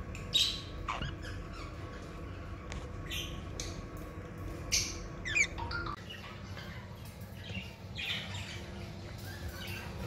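Exhibition budgerigars giving short, scattered squawks and chirps, several in the first six seconds and a few softer ones after, over a steady low hum.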